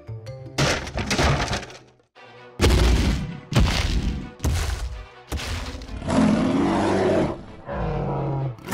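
Added sound effects of heavy crashing thuds, six or seven about a second apart, over background music.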